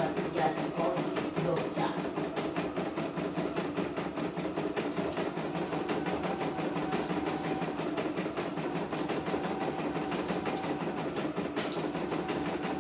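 CNY computerized embroidery machine stitching on a test run, its needle punching in a rapid, even ticking rhythm.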